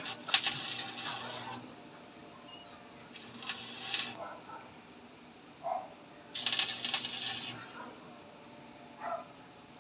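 Stick (arc) welding rod striking an arc in three short bursts of crackle and sizzle, each lasting one to one and a half seconds before it dies out: the arc keeps going out as the electrode sticks to the work.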